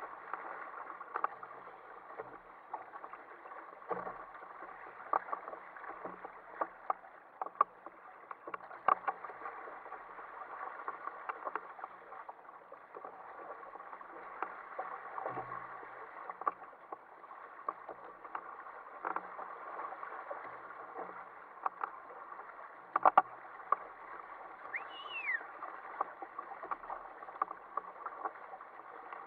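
Sea water rushing and slapping against the hull and outriggers of a sail-rigged Ocean Kayak Prowler 13 under way through chop, with frequent irregular sharp slaps from small waves.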